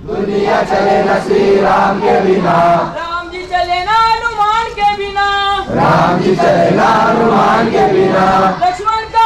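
Large group of men singing a devotional chant together in unison, phrase after phrase.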